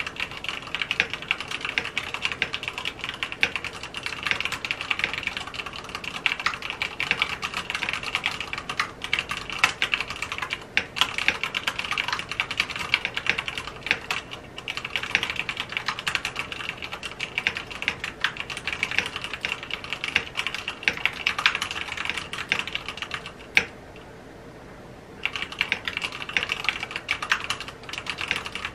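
Fast typing on a mechanical keyboard: a dense, uneven stream of key clicks. One key strike stands out louder, just before a pause of about a second and a half about three quarters of the way through, after which the typing picks up again.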